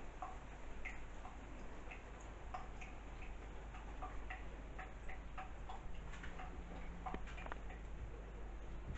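Water dripping from a leak, small irregular plinks a few times a second. A faint steady hum comes in about six seconds in.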